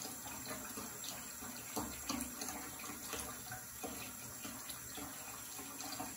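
A bath bomb fizzing in bathwater: a steady hiss of bubbles with small irregular crackles and pops.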